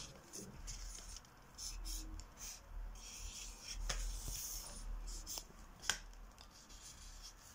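Marker pen scratching on a paper plate in short, faint strokes, with a couple of sharp clicks.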